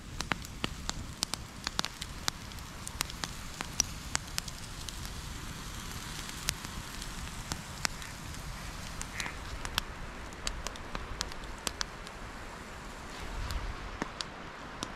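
Steak sizzling over a wood campfire, with the fire crackling: a steady hiss under many sharp pops and snaps.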